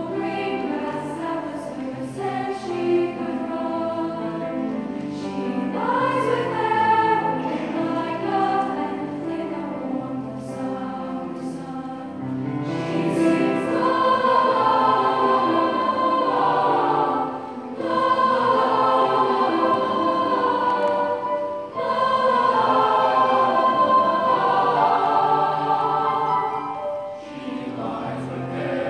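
Middle school choir of girls' and boys' voices singing, growing louder about halfway through, with short breaks between phrases.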